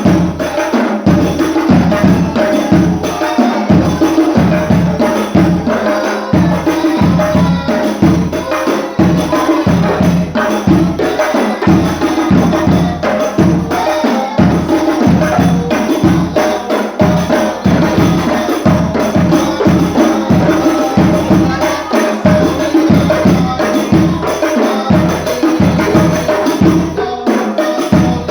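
Hadroh ensemble of rebana frame drums playing a steady, driving rhythm of deep strokes with bright slaps and jingles over it.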